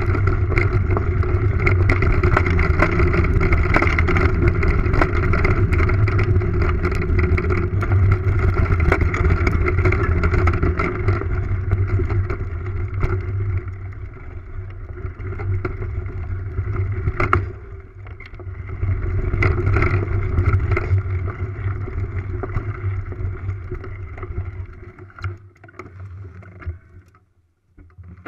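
Mountain bike rolling fast over a dirt singletrack, heard from a camera mounted on the bike: steady wind buffeting and tyre rumble with many small rattles and knocks from the trail. It eases off over the last few seconds as the bike slows to a stop.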